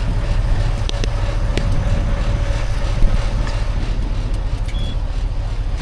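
Steady low engine rumble with a faint constant whine above it and a few light clicks.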